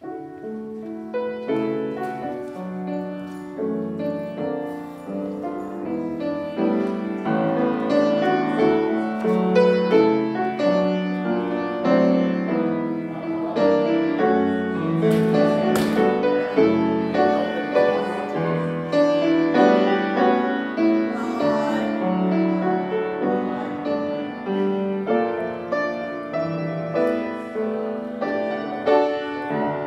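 Instrumental piano music in a classical style, many notes in flowing chords, starting abruptly at the beginning.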